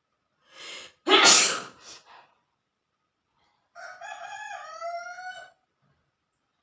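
A woman sneezes once: a short in-breath, then a loud burst about a second in, forced by tickling her nose with cotton. About four seconds in, a rooster crows once, a call of nearly two seconds.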